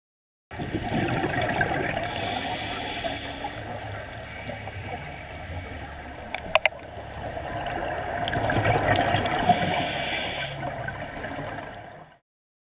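Scuba diver breathing underwater through a regulator, heard from a camera in its housing. There is a hissing inhalation about two seconds in and another near ten seconds, with bubbly, gurgling exhalation noise between them. Two sharp clicks come about six and a half seconds in.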